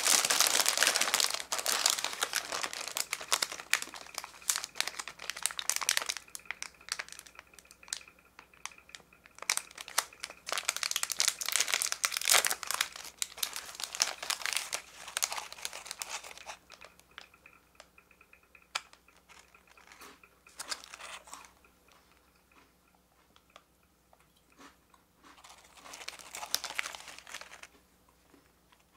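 Plastic snack wrappers crinkling as they are handled and torn open: the clear plastic outer bag of a dagashi snack pack, then a small Sankaku Crackers packet. The crinkling is dense for the first six seconds, comes back between about ten and sixteen seconds in, and then only in short spells with quiet gaps.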